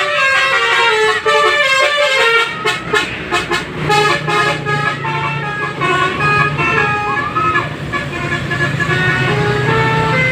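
Indonesian 'telolet' multi-tone bus horn playing a melody of stepped notes, with a rapid pulsing run of notes about three seconds in. A steady low hum sits beneath from about four seconds in.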